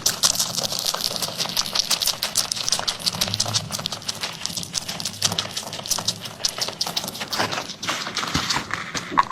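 Cat eating close to the microphone: a fast, continuous run of small wet mouth clicks.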